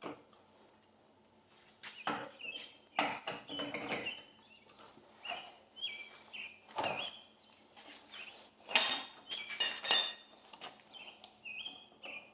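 Lug wrench clanking and ringing against the wheel's lug nuts as they are worked loose, in a string of irregular metallic knocks, with birds chirping between them.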